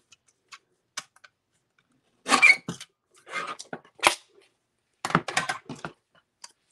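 Sliding-blade paper trimmer cutting the edge off a strip of cardstock: a short scraping cut about two seconds in. It is followed by more scraping and paper rustling, one sharp click, and then a longer burst of handling noise near the end.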